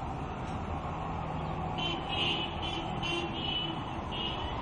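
Steady motor-vehicle rumble. About two seconds in, a string of five short, high-pitched beeps comes over it.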